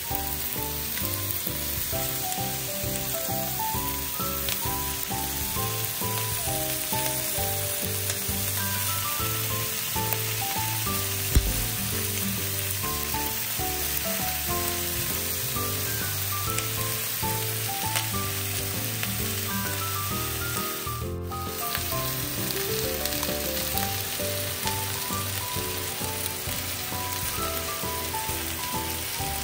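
Chicken and leek yakitori skewers sizzling steadily as they fry in a nonstick frying pan, over background music. One sharp knock about eleven seconds in.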